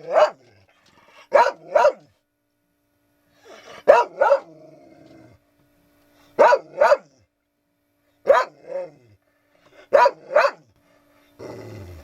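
A pet dog barking in doubled barks, two quick barks at a time, five pairs in all, about every two and a half seconds.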